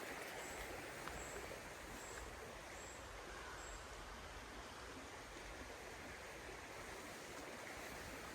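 Steady outdoor background hiss, with a faint high peep repeating about once a second during the first half.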